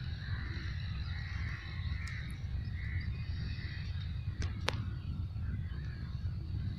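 Open-air rural ambience: a steady low rumble with birds calling faintly over it, and two sharp clicks about four and a half seconds in.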